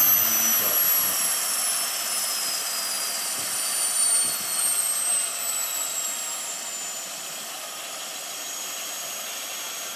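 Phal Power GP70 model gas turbine in a coaxial K-Max 1200 scale helicopter model spooling down on the ground. Its high whine falls steadily in pitch and fades over a steady rushing noise.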